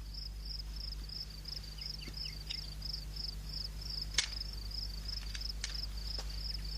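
Cricket chirping steadily, about three high chirps a second, over a low steady hum, with one sharp click a little past four seconds in.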